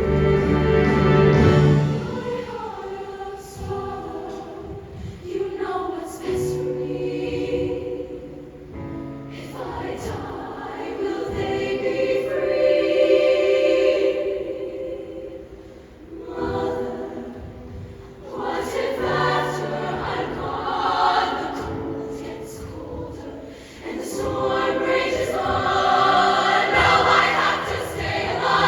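A show choir singing in full sustained chords over a live band with steady bass notes, the music swelling and easing off in phrases.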